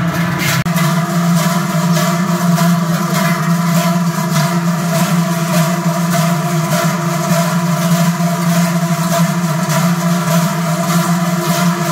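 A large group of big cowbells (Trycheln) swung together in a steady rhythm, their clangs merging into a loud, continuous ringing drone.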